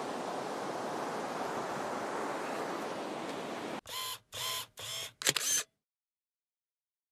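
A steady rushing noise that cuts off about four seconds in, followed by four quick camera shutter sounds in a row, like a single-lens reflex camera firing.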